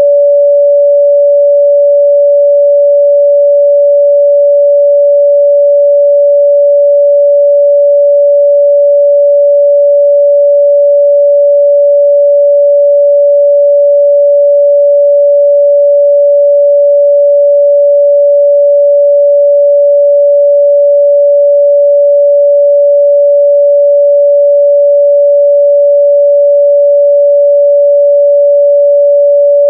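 Pure 574 Hz sine-wave test tone, held steady and loud at one pitch with nothing else.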